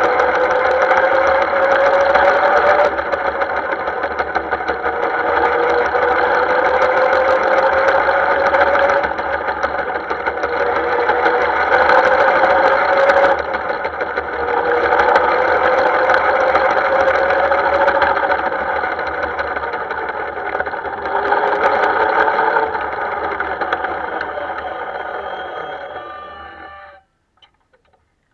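Miniature-railway model Class 08 shunter running along the track: a steady mechanical drone with wheel-on-rail rattle and a whine that climbs in pitch about five times. It fades near the end and cuts off abruptly.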